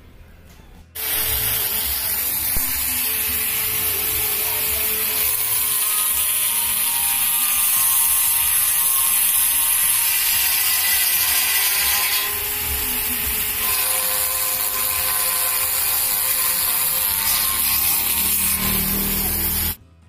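Handheld rotary tool with an abrasive grinding stone, grinding out a hole in a steel motorcycle fuel tank. Steady high-pitched grinding that starts about a second in and stops suddenly just before the end.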